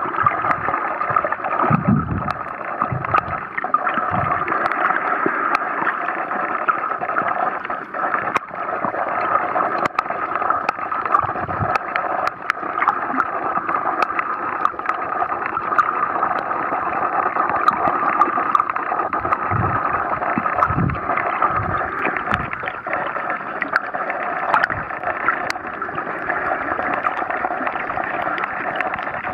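Underwater ambience picked up by a camera held under the surface: a steady muffled hiss with many scattered sharp clicks, and a few low thumps about two seconds in and again around twenty seconds in.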